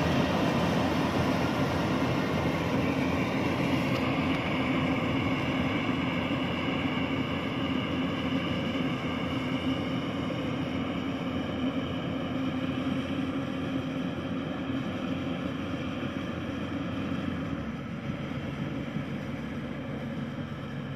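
Yanmar rice combine harvester running steadily while it cuts through the paddy, its engine and threshing drum giving a constant mechanical hum with a held pitch. It grows gradually fainter as the machine moves away.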